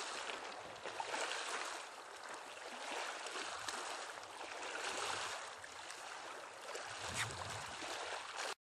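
Small waves washing on a beach: a steady hiss that swells and ebbs every second or two, cutting off suddenly near the end.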